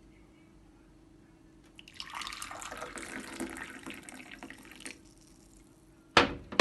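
Liquid poured into a cup for about three seconds, then a sharp knock near the end as something is set down.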